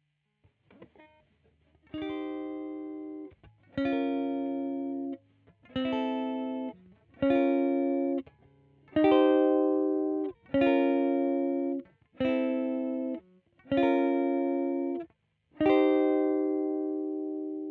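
Squier Vintage Modified Jaguar electric guitar playing a slow series of struck chords, about nine, each one muted short before the next. The last chord is left ringing. A few soft plucked notes come before the first chord.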